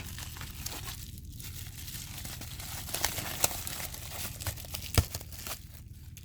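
Packaging being crumpled and torn open by hand, a dense crinkling and ripping with small clicks, and one sharp knock about five seconds in.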